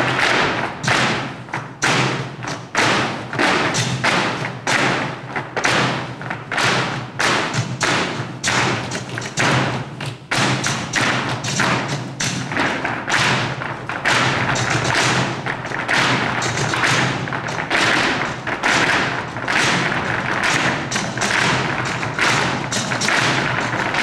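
Flamenco dancers' heeled shoes stamping footwork (zapateado) on a stage floor in rapid, rhythmic strikes over flamenco music, heard through a camcorder's built-in microphone.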